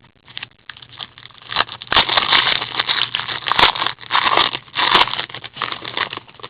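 Crinkling and crackling of a trading-card pack wrapper being handled and torn open, loudest in the middle stretch, with scattered clicks and rustles around it.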